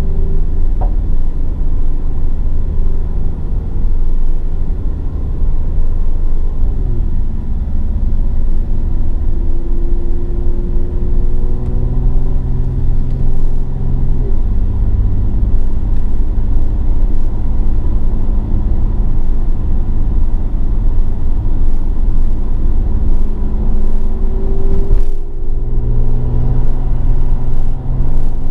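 Mercedes-AMG GLE 43's twin-turbo V6 engine pulling under acceleration over a steady low rumble, its pitch climbing slowly, with a short break near the end as the gearbox shifts up and the pitch drops before climbing again.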